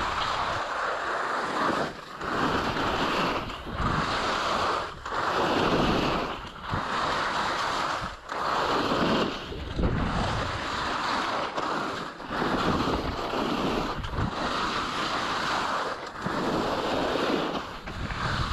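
Skis scraping and hissing over snow in a series of turns on a downhill run, one swoosh every second and a half to two seconds, with wind buffeting the microphone.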